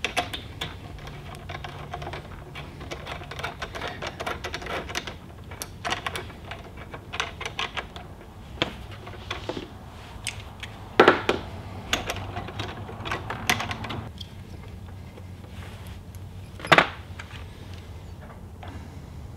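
Irregular small clicks and taps of hands handling wires and small plastic connectors at a battery module, over a low steady hum. Two sharper clicks stand out, about eleven seconds in and near seventeen seconds.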